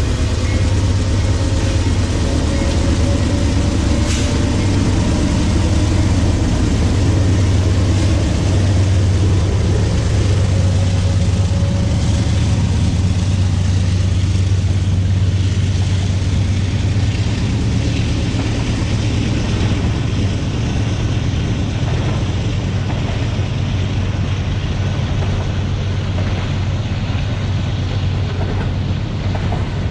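BNSF freight train passing: the GE diesel locomotives run with a steady low engine drone and a slowly falling tone in the first dozen seconds, giving way to the even rumble of autorack cars rolling by on the rails.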